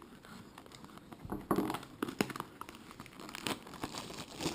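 Plastic wrapping crinkling and tearing as a sealed trading card box is cut open and handled, in scattered short bursts with light taps.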